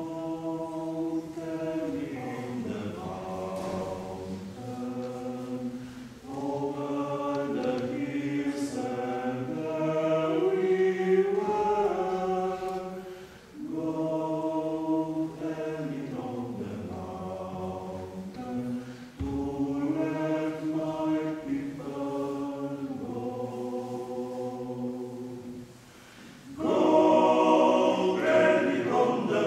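Male vocal octet singing a cappella in several phrases, with short breaks for breath between them; the last phrase, near the end, is louder than the rest.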